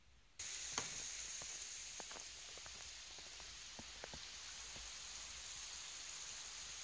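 Faint steady hiss that starts abruptly under half a second in, with a dozen or so scattered light clicks and ticks over it.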